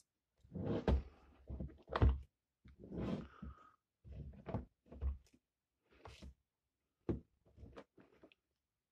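A cardboard product box handled on a leather desk pad: it scrapes and knocks against the desk as it is moved and turned over, with two heavier thuds about one and two seconds in.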